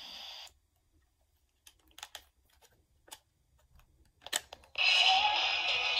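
Radio-cassette player: a steady hiss cuts off half a second in, several clicks of its buttons follow, and a loud hiss comes back near the end.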